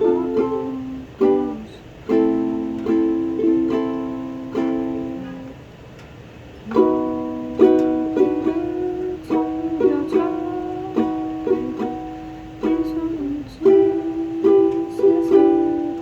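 Ukulele playing chords, each stroke ringing and fading, with a brief quieter gap about a third of the way in.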